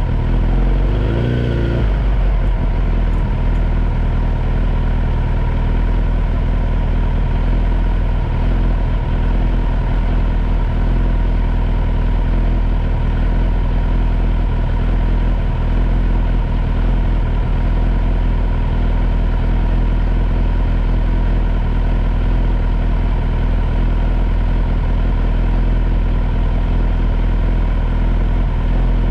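Kawasaki Z900 inline-four motorcycle engine idling steadily at a standstill on its freshly flashed ECU, with a brief rise in revs about a second in.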